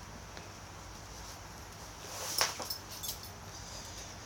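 Low steady room hum, with a short rustle of handling about two seconds in and a few faint clicks after it.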